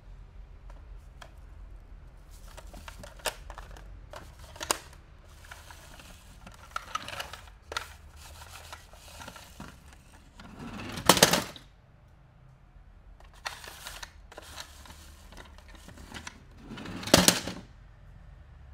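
Toy car packaging being handled and opened by hand: scattered small clicks and taps of plastic and cardboard, with two louder rustles, each under a second, about 11 and 17 seconds in.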